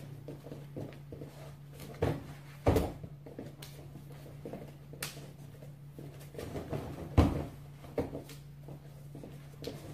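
Scattered thuds and slaps of feet stamping and shuffling on foam training mats and of bodies and arms striking during martial arts locks and takedowns, the loudest near three seconds in and again about seven seconds in, over a steady low hum.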